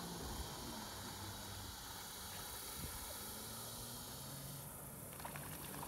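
Faint, steady outdoor hiss with a faint low hum underneath, and no distinct event.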